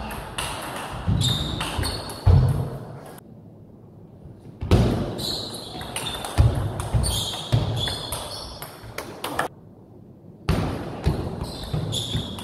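Table tennis rallies: the ball clicking sharply on the bats and table in quick, irregular exchanges, with the players' feet thudding on the floor as they move. Play stops twice, about three seconds in and again near nine and a half seconds, leaving only a dull hall rumble before the clicks resume.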